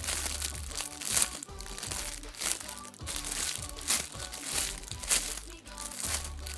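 Crinkling of a squishy's plastic packaging as it is handled, in many short sharp crackles, over background music.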